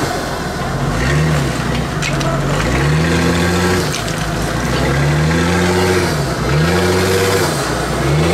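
Custom-built 4x4 trial buggy's engine revving up and dropping back over and over, about every one and a half to two seconds, as it crawls over rocks.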